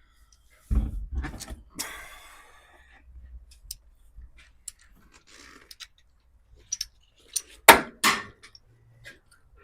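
Metal parts and hand tools being handled: a few heavy thuds about a second in, followed by a rattling metallic clatter, then scattered light clicks. Two sharp, loud knocks near the end.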